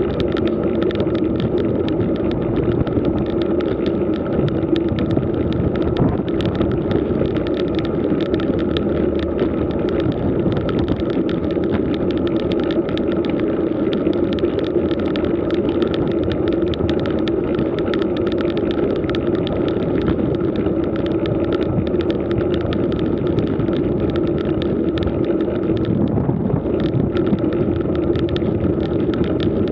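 Steady road and wind noise from a camera mounted on a road bicycle rolling slowly over rough asphalt: a constant hum with fine rattling all through.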